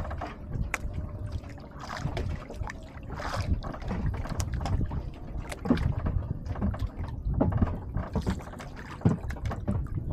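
Water lapping and sloshing against a small outrigger canoe's hull, with wind buffeting the microphone and scattered light clicks and knocks.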